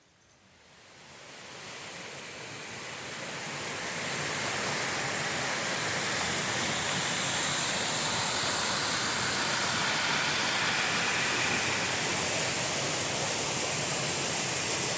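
Waterfall rushing: a steady wash of falling water that swells up over the first few seconds, then holds level.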